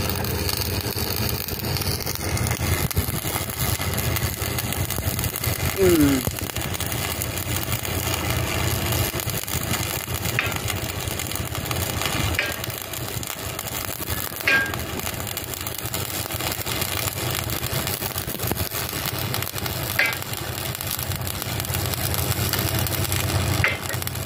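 Electric arc welding on a steel pipe joint with a stick electrode: the arc crackles and hisses steadily, over a low steady hum. A few brief high chirps sound over it in the second half.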